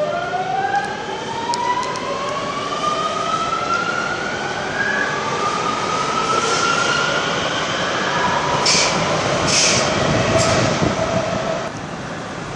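Electric metro train pulling away: its motor whine rises in pitch in two long climbs as it accelerates. Three short hisses come near the end, then the sound drops off as the train leaves.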